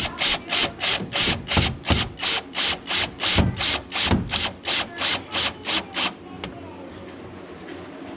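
A hand tool worked in rapid, even strokes, about three a second, some twenty in all, stopping about six seconds in.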